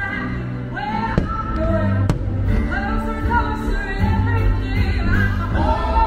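Fireworks-show soundtrack: a sung pop song with band accompaniment, with a couple of sharp firework bangs about one and two seconds in.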